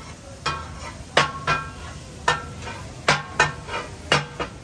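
Metal spatulas striking a large steel tawa griddle in the rhythmic clanging of katakat chopping. The strikes ring, come about two a second and often fall in quick pairs.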